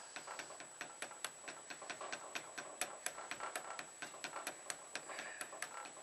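Light, rapid ticking: short clicks, about four or five a second and uneven in strength, over a faint steady high-pitched whine.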